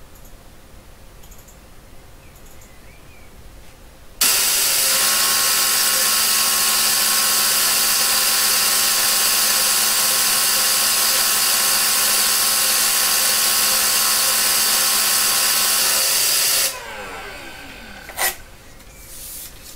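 FACIT N4000 paper tape punch punching out a copy of a tape: a loud, steady mechanical buzz that starts abruptly about four seconds in and runs for about twelve seconds. It then stops, with a falling tone as the mechanism runs down, and a single sharp click follows.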